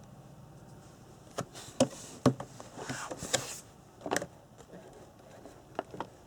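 Objects being unpacked and handled on a hard surface: several sharp knocks and clicks, with a short rustle of packaging in the middle.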